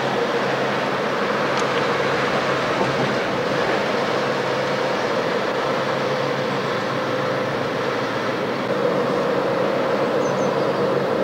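Steady running noise from inside a moving vehicle, an even rush with a constant hum and no break.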